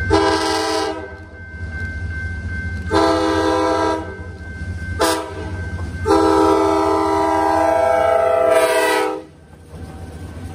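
Nathan K5LA five-chime air horn on a New Haven FL9 diesel locomotive sounding the grade-crossing signal: two long blasts, a short one and a final long blast of about three seconds, over the low rumble of the approaching train.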